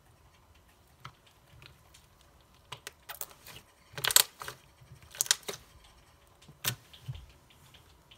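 Grey slime squeezed and squished between two hands, giving clusters of sharp clicking, crackling pops. The loudest cluster comes about four seconds in.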